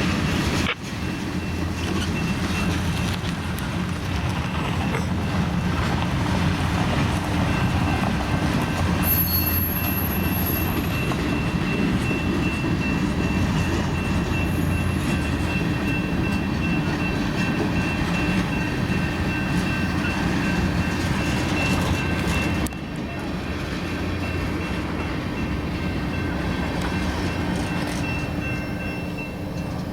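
Long freight train's cars rolling past on the rails, a steady heavy rumble with a faint high wheel squeal. The level drops abruptly about a second in and again at about 23 seconds.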